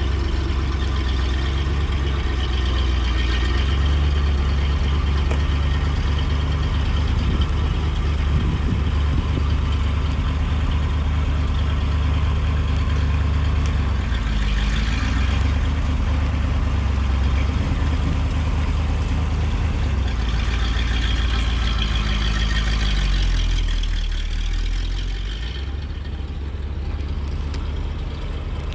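1965 Corvette Sting Ray's V8 running shortly after a cold start, a steady low exhaust note with small changes in pitch as the car is moved. Near the end the car drives off and the sound grows fainter.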